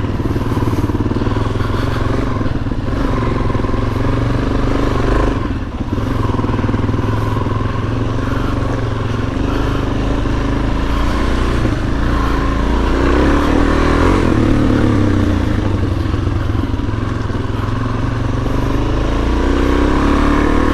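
Suzuki DR-Z400S single-cylinder four-stroke dirt bike engine running under load on a trail ride. The throttle briefly eases off about six seconds in, and the engine note rises and gets louder around thirteen seconds.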